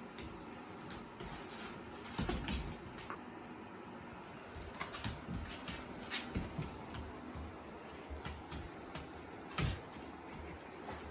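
Scattered taps and knocks from a Bernese mountain dog moving about and begging for its dinner, with a louder thump about two seconds in and another near the end.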